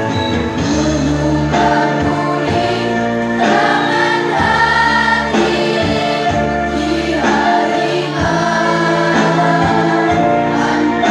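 A girls' school choir singing together in phrases of long held notes.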